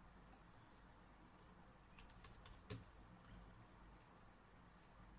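A few faint computer mouse clicks over near-silent room tone, clustered about halfway through with one louder click.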